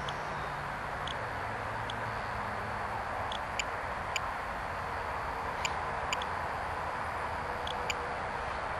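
Steady outdoor background hiss with a faint low hum that falls in pitch near the start, broken by about a dozen faint short ticks at irregular intervals.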